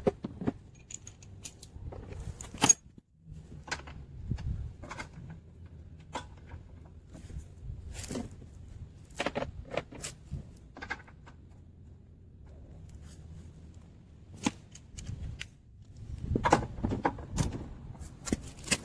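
Irregular metallic clinks and knocks of hand tools and parts being handled during engine-mount work, busiest near the end.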